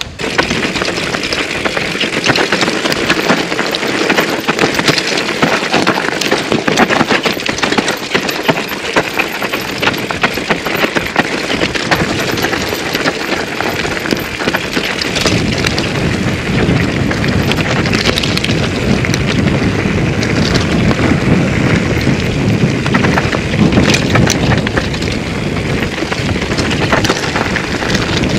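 2008 Intense Tracer mountain bike ridden down a rocky trail: constant clatter and rattle of tyres over stones and chain and frame shaking. Wind buffets the action-camera microphone, heavier in the second half.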